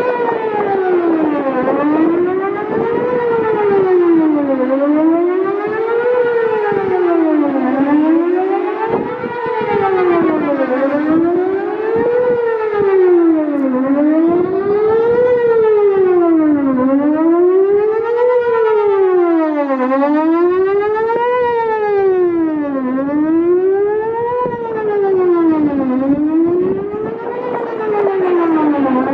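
Whelen WPS-4008 electronic outdoor warning siren sounding its Best Possible Protection tone: a wail that rises and falls about every three seconds. Wind buffets the microphone throughout. The recordist believes the siren is running with only half its driver intact.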